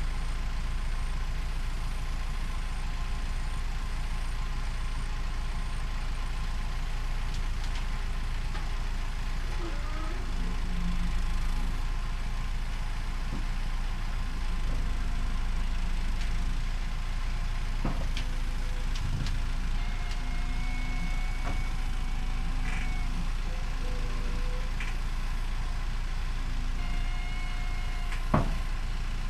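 Caterpillar 416C backhoe's diesel engine running steadily under load as it pushes a dump truck onto a trailer, with scattered knocks and a few short whines. A sharp knock near the end is the loudest sound.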